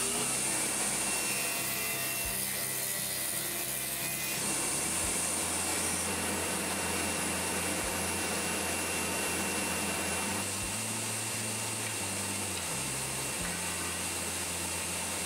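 Woodworking jointer running, with the rough hiss of oak boards being planed across its cutterhead over a steady high whine.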